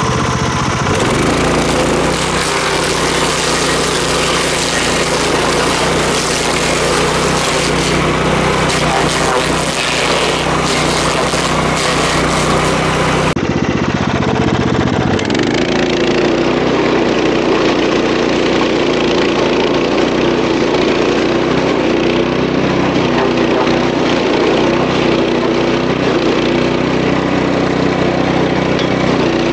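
Engine-driven stump grinder running steadily under load. About thirteen seconds in the sound changes abruptly and its high hiss drops away.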